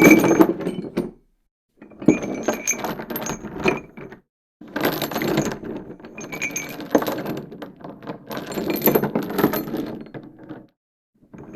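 Metal chain rattling and clinking, heard as separate takes with silence between them: one ends about a second in, then a rattle of about two seconds, a longer one of about six seconds, and another begins near the end.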